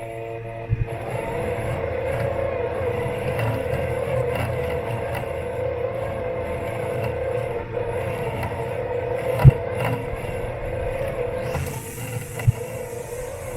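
Robot lawn mower's electric motors running with a steady whine of several tones, heard from on board the mower. There is one sharp knock about nine and a half seconds in, and smaller knocks near the start and near the end.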